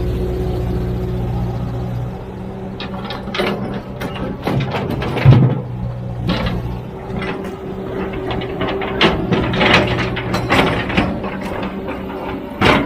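A heavy machine's diesel engine runs steadily, with a string of sharp clanks and knocks from about three seconds in. The loudest knock comes a little after five seconds.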